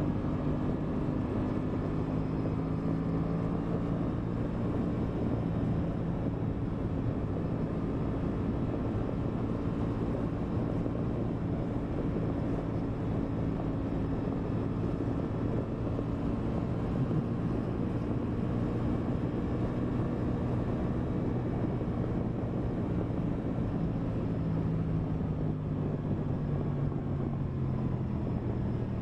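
2023 Aprilia Tuono 660's parallel-twin engine running at a steady cruise, heard from the rider's position over a constant rush of wind. The engine note eases slightly lower near the end.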